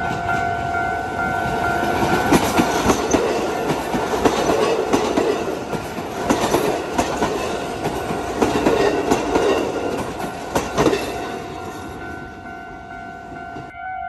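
A Kotoden electric train passes over a level crossing for about nine seconds, its wheels clacking over the rail joints. The crossing's warning bell rings steadily and stands out clearly before the train arrives and again once it has gone by near the end.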